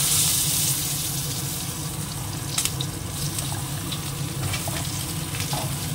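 Eggplant pieces sizzling in hot oil in a kadai as more pieces are dropped in, with a few light knocks of the pieces and the metal spatula against the pan.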